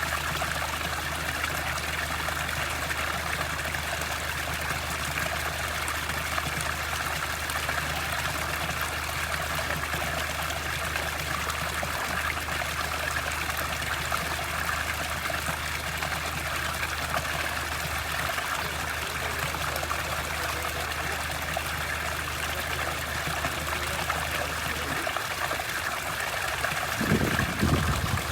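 Mineral hot-spring water running steadily, a continuous flowing trickle. Near the end there is a brief low rumble.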